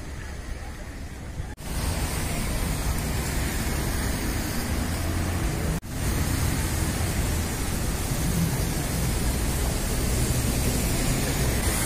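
Steady city street noise: an even hiss with a low rumble underneath and no distinct events, dropping out for an instant about one and a half seconds in and again near six seconds.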